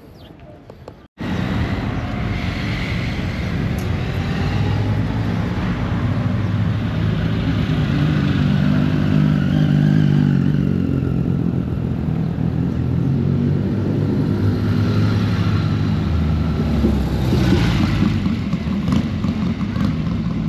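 Motorcycle engines running with a steady drone, starting abruptly about a second in.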